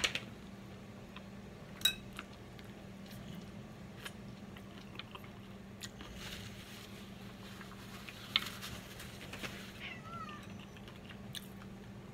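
Biting and chewing a fried chicken wing, with sharp clicks from the bite at the start and about two seconds in. A cat meows briefly about ten seconds in.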